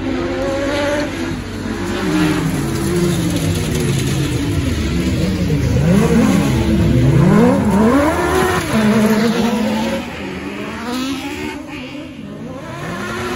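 A pack of autocross buggies races through a dirt bend, several engines revving up and down over one another. The sound is loudest about six to eight seconds in, then eases as the cars move off.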